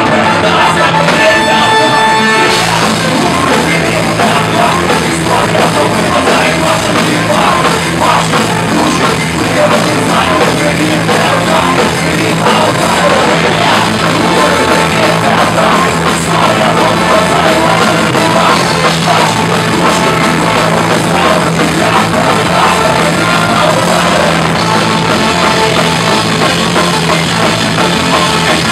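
Live ska-punk band playing loud, with drum kit, electric guitars and brass; the sound changes abruptly about two and a half seconds in, then runs on as full-band rock.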